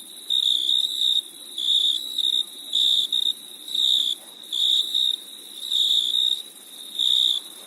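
Crickets chirping: a steady high-pitched trill with louder chirps coming about once a second, over a fainter, higher continuous insect hum.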